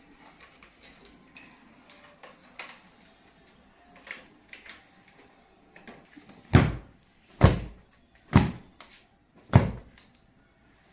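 Four heavy thumps, roughly a second apart, with lighter knocks and handling noises before them, as things are moved about while tidying a room.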